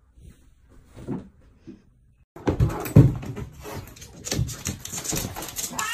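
Two cats wrestling on a wooden floor: a few faint soft sounds, then about two seconds in a sudden run of scuffling and thuds as they tussle, loudest just after it starts.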